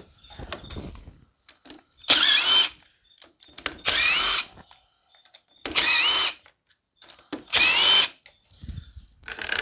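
Cordless driver spinning screws out of an engine shroud in four short bursts, each well under a second, its motor whine bending up and down in pitch as each screw backs out.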